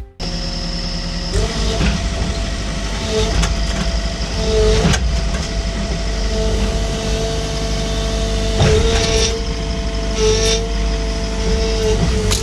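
Sany SY50C mini excavator's diesel engine running steadily, with a steady whine over the low engine hum. There are a couple of short knocks, about five seconds in and again near nine seconds.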